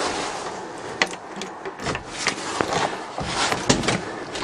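Scattered clicks and clunks of the truck's cab controls being handled over a steady hiss, with the engine not yet running.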